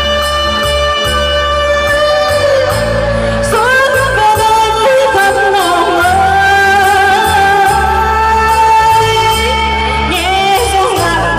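A woman singing into a microphone, amplified through PA speakers over a backing track with a steady bass beat; she holds long notes and slides between pitches.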